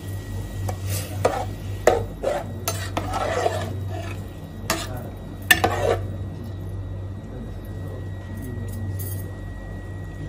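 Large metal spoon stirring rice into broth in an aluminium cooking pot, knocking and clinking against the pot's sides a dozen or so times, loudest about five seconds in. After about six seconds the knocks stop and only a steady low hum remains.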